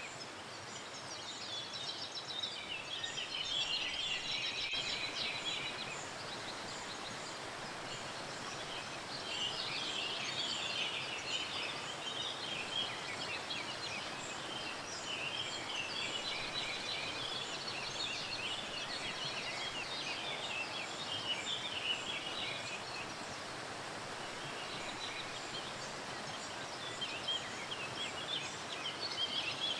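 Steady rush of a waterfall with small birds chirping rapidly in busy spells of a few seconds, easing off between them.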